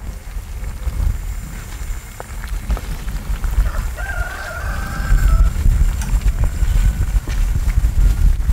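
A rooster crows once, about four seconds in, over a steady low rumble.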